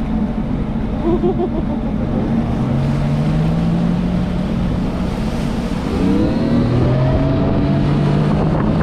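Sea-Doo jet ski engine running under throttle with water rushing and wind; its pitch rises and it gets louder about six seconds in as it speeds up.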